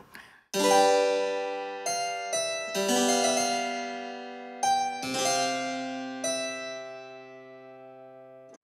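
Background keyboard music: a run of struck chords that ring and fade, with new chords coming in every second or so, cutting off abruptly at the end.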